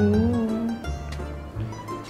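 Background music: a light tune of short notes over a steady bass line.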